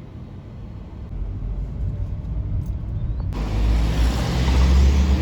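Ford Mustang GT's V8 engine and exhaust running under load, a low rumble that builds steadily louder as it accelerates, jumping up sharply about three seconds in.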